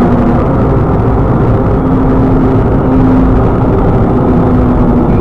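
Car driving along a road: steady engine and road noise, with a low hum that comes and goes.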